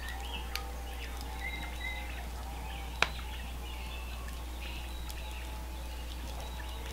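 Small songbirds chirping and calling, with short scattered notes. There is one sharp click about three seconds in.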